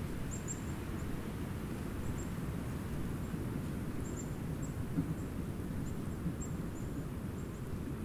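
Outdoor winter ambience: a steady low rumble with faint, very short, high-pitched bird chips scattered through it.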